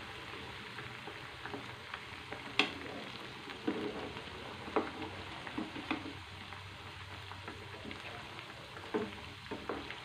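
Battered chicken pakodi pieces deep-frying in hot oil in a kadai, a steady sizzle, with the clinks and scrapes of a metal slotted spoon turning the pieces over against the pan several times, the sharpest knock about two and a half seconds in.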